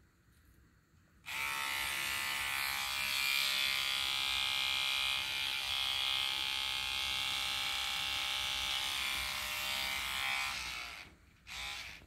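Electric toothbrush switched on and buzzing steadily, held against a plant's flowers to vibrate the pollen loose. It starts about a second in and stops near the end.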